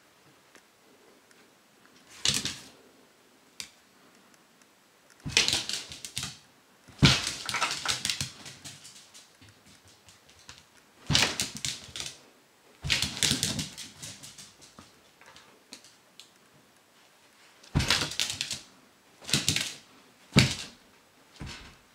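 Shiba Inu puppy's claws clicking and scrabbling on a smooth vinyl floor as she dashes about in play, in quick bursts of rapid clicks separated by pauses.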